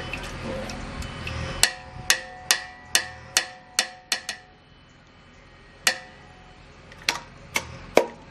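Perforated metal boondi ladles knocking against the rims of metal pots and pans in sharp, ringing clinks: a run of about eight at roughly two a second, then a few single clinks spread through the rest.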